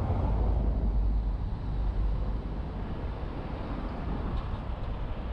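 Steady road and wind noise from a moving car, picked up by a camera mounted on the outside of the car, with the low end heaviest. Slightly louder for the first two seconds, then easing a little.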